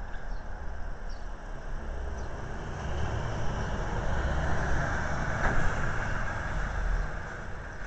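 A passing motor vehicle: a low rumble with road noise that swells through the middle and eases off near the end.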